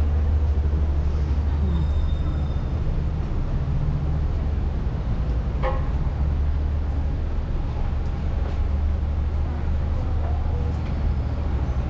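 Downtown street traffic: a steady low rumble of vehicle engines and tyres. A brief pitched sound, like a short horn toot, comes about halfway through.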